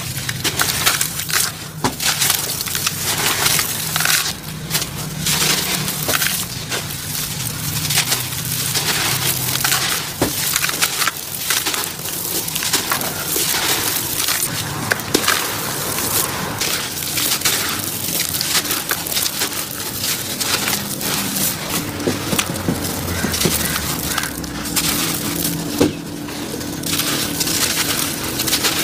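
Sand-cement lumps being crushed and crumbled by hand into a basin: dense, continuous gritty crunching and crackling as the pieces break apart and fall.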